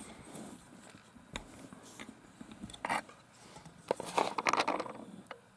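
Handling noise from a rubberized hook-and-loop battery strap being pressed and fastened around a Li-Po battery: a few sharp clicks, then a crackly rasping rustle about four seconds in.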